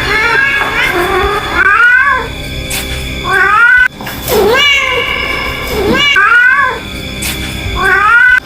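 A mother cat meowing repeatedly: about six loud, drawn-out calls, one every second or two, each bending up in pitch. These are the calls of a queen who has lost her kitten.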